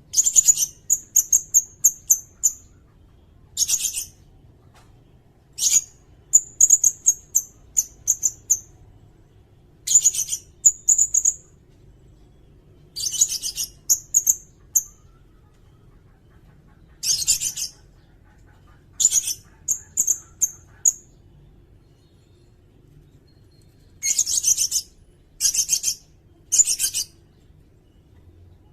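Sirindet bird calling: short bursts of shrill, very high-pitched chirps and rapid trills, repeated every second or few, with brief pauses between them.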